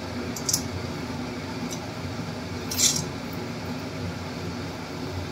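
A metal spatula clinks against an aluminium kadai of heating milk as pieces of jaggery are dropped in and stirred. There are a few short clinks, the loudest nearly three seconds in, over a steady low hum.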